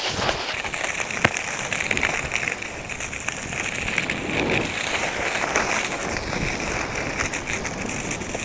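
Skis sliding over snow, a steady hiss with crackling, and one sharp click about a second in.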